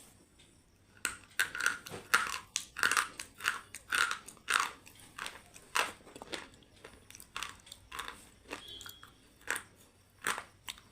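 A person biting and chewing something crunchy: a run of sharp crunches starting about a second in, close together at first, then more spaced out toward the end.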